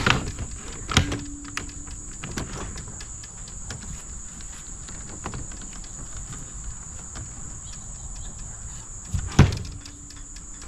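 A few scattered clunks and knocks as a transom-mounted trolling motor and its tiller extension handle are raised and moved, the loudest about nine seconds in. A steady high-pitched insect chorus runs underneath.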